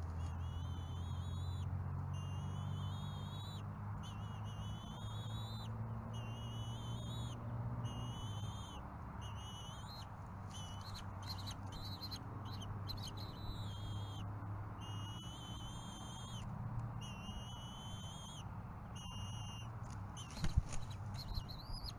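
Bald eaglet giving high, wavering whistled food-begging calls, repeated roughly once a second, over a steady low hum. A few knocks near the end as an adult eagle shifts and spreads its wings on the stick nest.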